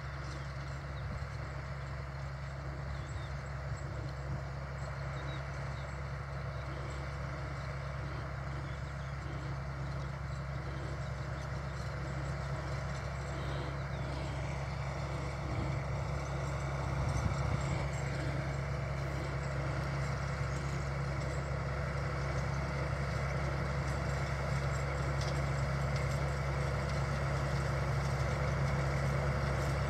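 Tractor's diesel engine running steadily under load while it pulls a tillage implement across the field, growing gradually louder as it comes closer.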